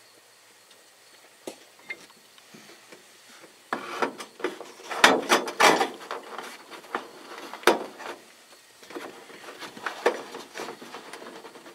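Irregular knocking, clicking and scraping as interior trim in a 1986 Ford F-150 cab is pried and worked loose by hand. A few sharp knocks come about five to eight seconds in, after a quiet start.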